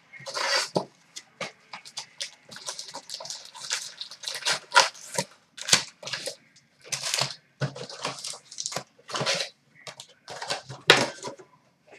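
A cardboard hockey card box being torn open and its packs pulled out and handled: a run of short, sharp tearing, rustling and knocking noises.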